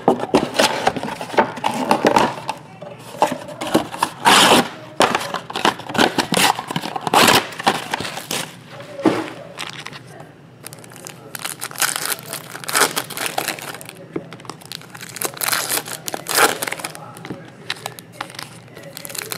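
Foil trading-card packs crinkling and rustling as they are handled and shuffled by hand, with irregular crackles throughout.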